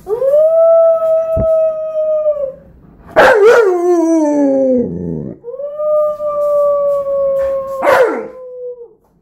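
Alaskan Malamute howling: a long, steady howl, then a louder, wavering howl that slides down in pitch, then another long howl that drops away at the end.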